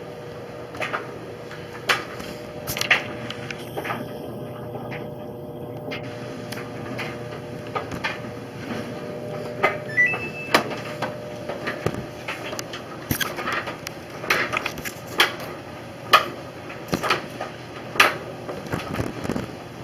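Irregular knocks, clicks and clatter of kitchen cleaning, such as cupboard doors and items being handled and set down, over a steady appliance hum. A short electronic beep sounds about ten seconds in.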